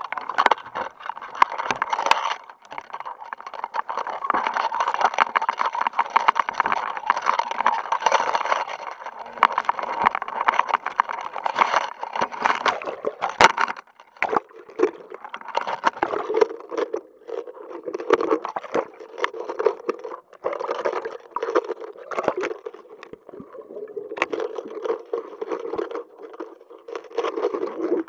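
Water splashing and sloshing around a waterproof action-camera housing at the surface beside a fishing boat's hull, with frequent sharp knocks and scrapes. About halfway through the sound turns duller and steadier as the camera goes back under water.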